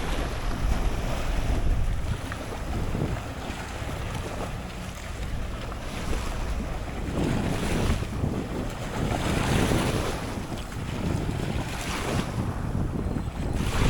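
Wind buffeting the action camera's microphone in gusts, a low rumbling noise, with water sounds from the boat on the bay.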